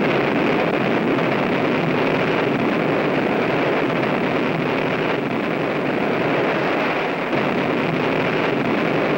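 Steady, loud rushing roar of buildings collapsing in explosive demolitions, falling masonry and debris, with no separate blasts standing out.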